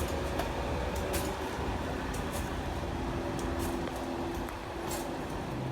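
Street vehicle noise: a steady rumble with a faint engine hum, with a few light ticks scattered through it.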